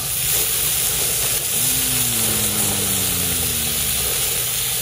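Sausages sizzling on a portable gas grill: a steady hiss that gets louder as the lid comes off at the start. A faint low tone glides slowly downward in the middle.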